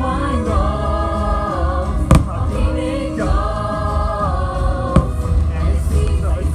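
Fireworks show soundtrack played over loudspeakers, a choir holding long sung chords. Two sharp firework bangs cut through it, about two seconds in and again about five seconds in.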